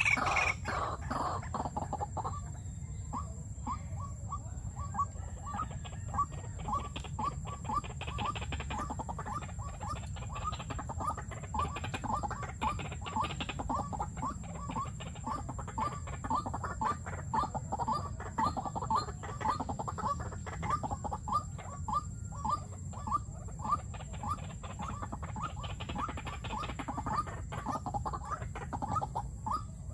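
White-breasted waterhen calling a long, steady series of short repeated notes, about two a second.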